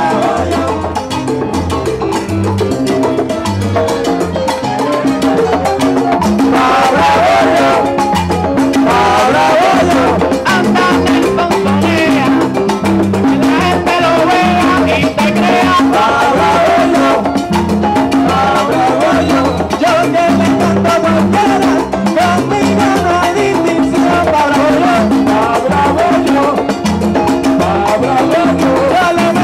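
Live Latin band playing a salsa-style groove: congas and timbales keeping a steady rhythm over a repeating bass line, with male voices singing into microphones, the singing coming in stronger about six seconds in.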